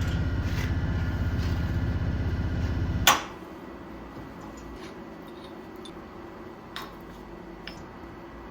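A workshop machine running with a loud, fast, even pulsing hum, then a sharp clunk about three seconds in as it shuts off. After that a quieter steady hum remains, with a few light clicks.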